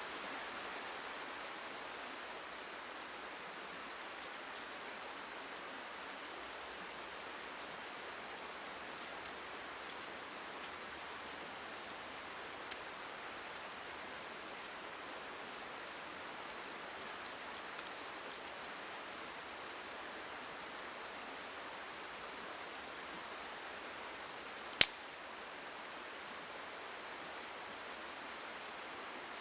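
Steady rushing water noise of a river, with a few faint ticks and one sharp crack about 25 seconds in.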